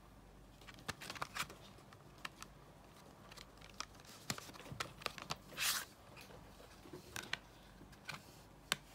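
Hands handling a CD slipcase and a plastic jewel case: scattered light clicks and taps, with a short scrape a little past halfway as the jewel case slides out of the slipcase.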